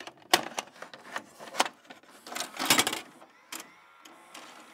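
Mechanical clicking and clatter of an old computer terminal, like keys being struck, irregular and densest in a burst about two and a half seconds in. It then gives way to a faint steady electronic hum with a thin high whine.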